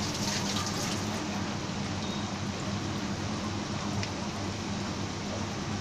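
Battered baby corn pakoras deep-frying in hot oil in a kadai, a steady sizzle with a few crackles in the first second. A low steady hum runs underneath.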